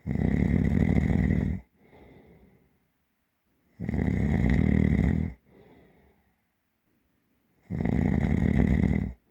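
A person snoring deeply and heavily: three loud snores, each about a second and a half long and about four seconds apart, each followed by a quieter breath.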